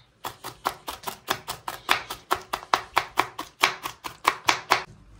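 Cabbage being chopped fast on a cutting board: a steady run of about five sharp knife strokes a second, stopping just before the end.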